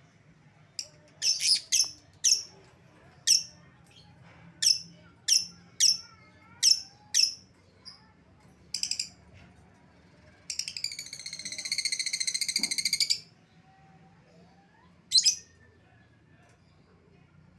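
Lovebird calling: a string of short, sharp, high-pitched chirps, then a rapid chattering trill lasting about two and a half seconds, the long 'ngekek' chatter, and one more chirp near the end.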